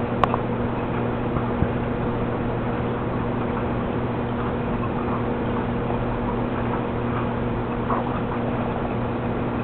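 Aquarium pump running: a steady hum under a constant hiss, with a few faint ticks.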